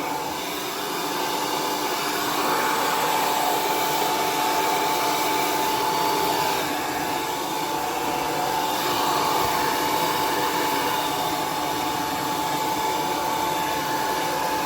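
L'ange hair dryer running continuously: a steady rush of air with a constant high whine, swelling and easing slightly in loudness as it is worked over the hair.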